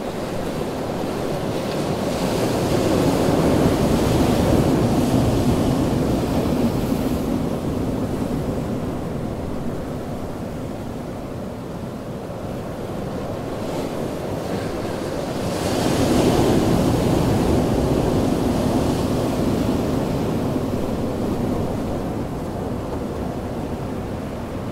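Ocean waves breaking on a beach, two in turn: the first swells a couple of seconds in, the second breaks more sharply about sixteen seconds in, and each washes out slowly.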